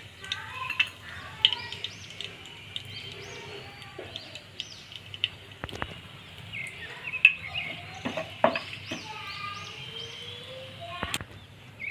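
Birds chirping and calling, many short chirps throughout, with a few sharp knocks.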